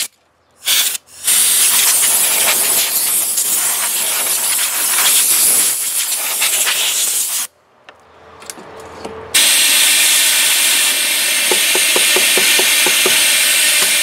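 Compressed-air blow gun from an air compressor hissing as it blasts into the burner tube and orifice of an RV propane fridge to clear out soot and bugs: a short puff about half a second in, a long blast of about six seconds, a pause, then another long blast starting about nine seconds in.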